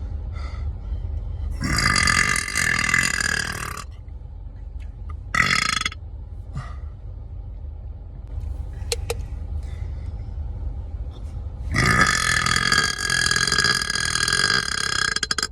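Burps brought up by gulped sparkling water. A long drawn-out belch comes about two seconds in, a short one a few seconds later, and another long one near the end.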